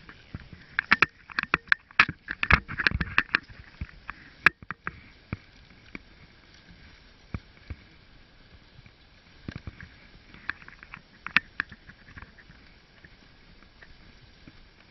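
Wooden dog sled running over a snowy trail behind its team. The runners give a faint steady hiss, with many sharp clatters and knocks from the sled, thickest in the first few seconds and again about ten seconds in.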